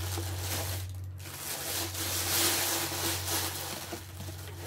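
Cardboard box and its packaging rustling and scraping as sunglasses are lifted out, over a steady low hum.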